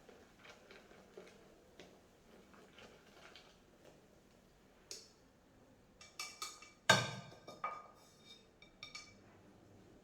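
A utensil stirring flour into cake batter in a mixing bowl: soft taps at first, then, from about six seconds in, a handful of sharper clinks against the bowl that ring briefly.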